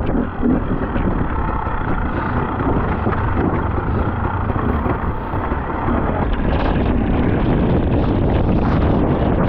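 Off-road enduro motorcycle engine running under way, with wind buffeting the microphone.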